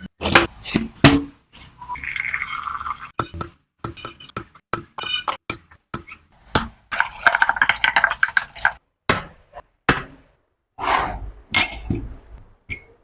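Kitchen handling sounds for making watermelon juice: glassware and utensils clinking and knocking many times, with two stretches of about a second of liquid being poured, near the start and in the middle.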